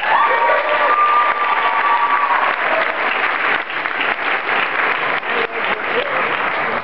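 Congregation applauding, many hands clapping in a steady patter, with one held high note over the clapping for the first two seconds or so.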